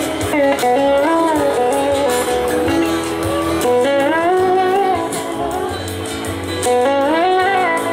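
Live electric blues-rock band: an electric slide guitar plays a lead line of gliding, bending notes over bass guitar and a drum kit.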